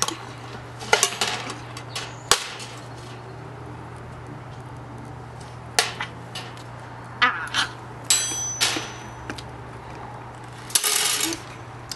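Knife and fork clinking and scraping against a plate on a metal mesh table: a handful of separate sharp clicks and clanks, with one clink about eight seconds in that rings on briefly like struck metal. A short burst of noise comes near the end.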